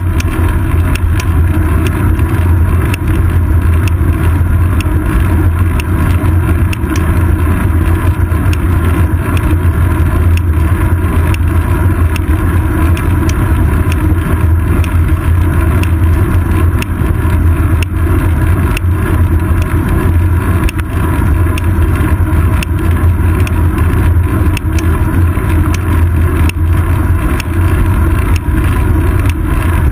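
Steady loud rumble of wind and road vibration from a moving bicycle, picked up by a GoPro Hero 2 mounted on the seat post, with frequent small clicks and knocks throughout.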